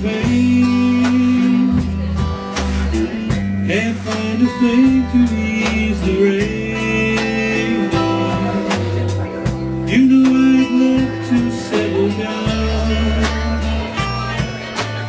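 Live blues-rock band playing an instrumental break, with electric guitar and a steady bass line under held, bending lead notes.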